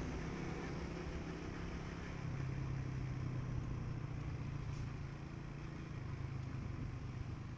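Motorcycle engine running steadily while being ridden; its note grows louder about two seconds in and eases off again a few seconds later.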